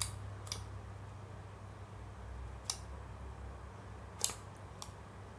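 Clear-glue water slime being pressed and poked by fingers in a foil tray, giving four short, sharp wet clicks spread over the few seconds.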